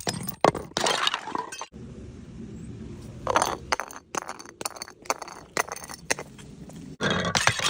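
Glass bottles shattering, with broken shards clinking. It comes in separate bursts: a cluster of sharp breaks at the start, a shorter crash about three seconds in with scattered clinks after it, and a dense, loud crash near the end.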